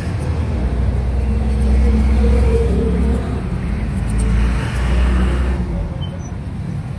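Loud low rumble of passing motor traffic, swelling twice and easing off toward the end.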